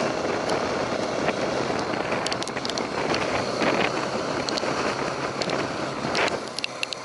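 Handling noise on an action camera's microphone: cloth or a hand rubbing over it with a steady rustle and many small scattered clicks and crackles.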